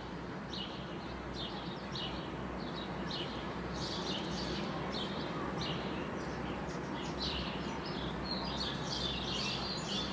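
Small birds chirping in quick repeated calls, about two a second, over a steady background noise.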